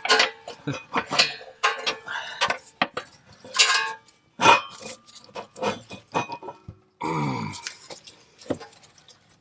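Irregular metal clanks and scrapes from exhaust pipework being worked loose by hand, with a short sound that falls in pitch about seven seconds in.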